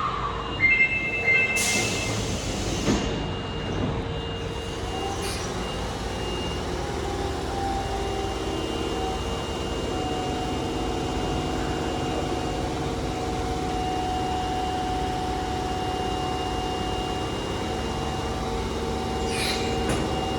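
Subway train at the platform: a short two-tone chime and a hiss of air about two seconds in, then the steady whine of the electric train's motors.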